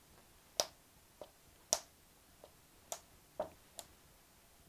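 Kneaded eraser dabbed onto a charcoal drawing on paper, lifting charcoal to lighten the teeth: about seven short, sharp taps, unevenly spaced, the loudest about half a second and a second and a half in.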